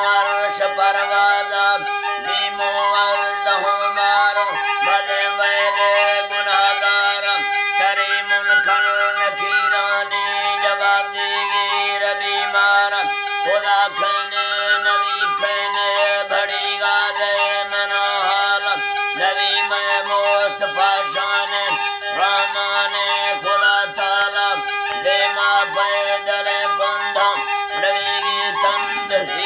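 Balochi folk music: a wooden flute plays an ornamented melody over a steady, unbroken drone note, and a man sings along.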